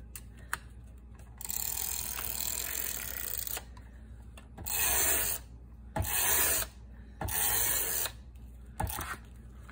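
Tape runner drawn along the edge of a paper notepad cover in four strokes: a long one of about two seconds, then three shorter ones, with small clicks between.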